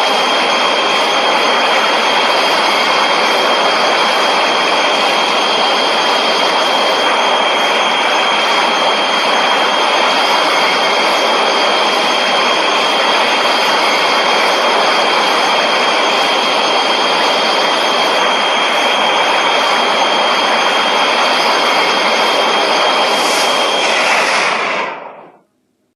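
A long, steady monster sound effect from Shin Godzilla: a harsh rushing noise with a thin, high whistle-like tone held through it, fading out quickly about a second before the end.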